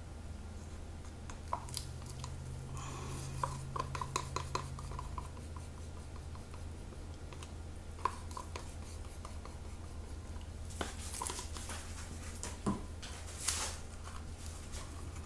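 A paint stirring stick scraping and tapping against plastic cups as the last of the acrylic paint is scraped out, in scattered small clicks and short scrapes, busiest soon after the start and again near the end. A steady low hum runs underneath.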